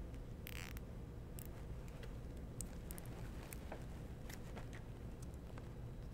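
Faint handling of a rubber timing belt and nylon zip ties: a short rasp about half a second in, then scattered light clicks and ticks.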